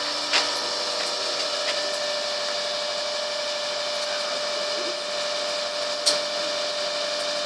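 Hydraulic universal testing machine running under load as it compresses a wood sample, a steady hum with a constant whine. Two sharp cracks stand out, about half a second in and again about six seconds in.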